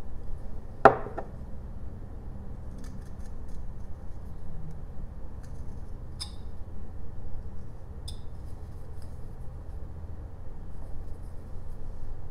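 Whittling knife cutting into a small block of jelutong. There is one sharp crack about a second in, then quieter cuts and two light clicks later, over a low steady hum.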